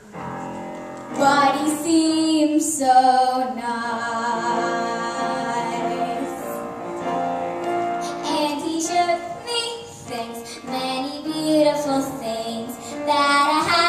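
A young girl singing a musical-theatre song solo in held, sung phrases, with piano accompaniment.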